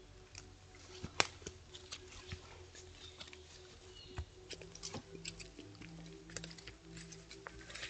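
Elk moving through tall grass and brush close to the camera: scattered clicks and snaps of hooves and stems, the sharpest about a second in. These sit over a steady low hum of tones.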